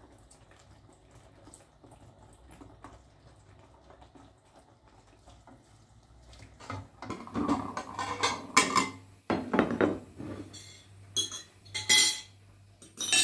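Kitchen dishes and cutlery clattering and clinking. The first half holds only faint light clicks; from about halfway a run of loud clattering starts, with sharp ringing clinks near the end.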